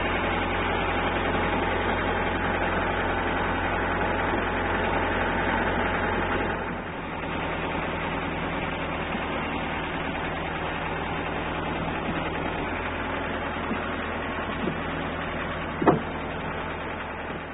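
An engine running steadily with a low hum, a little quieter after a cut about seven seconds in, with a brief sharp knock near the end.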